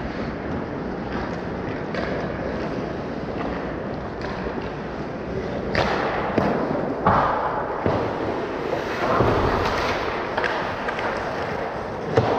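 Hockey game play: sharp knocks of sticks and puck over a steady rink hiss, three louder strikes in the second half, the loudest near the end.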